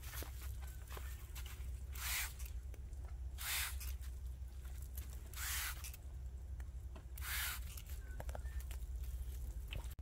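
Four short hisses from a hand sprayer nozzle misting streptomycin solution onto Shine Muscat grape flower clusters for seedless treatment, spaced about one and a half to two seconds apart.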